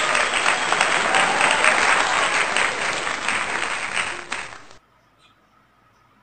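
Sound-effect applause, a dense crowd clapping. It cuts off abruptly a little under five seconds in.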